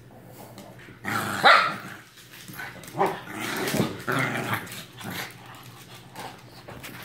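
A Shih Tzu and a Lhasa Apso play-fighting, growling and barking in several short bursts after a quiet first second; the loudest comes about a second and a half in.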